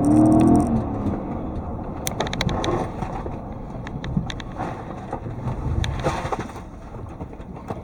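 A car in motion: steady low road and engine rumble, with a few sharp clicks scattered through.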